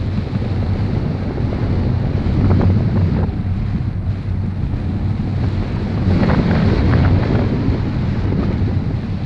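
Airflow buffeting the camera microphone in paragliding flight: a steady low wind rumble that swells in gusts about two and a half seconds in and again about six seconds in.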